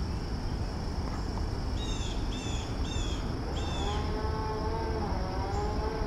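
A steady high-pitched insect drone over a low rumble. About two seconds in come four short down-slurred chirps, and from about four seconds a wavering, moo-like pitched sound with several overtones joins.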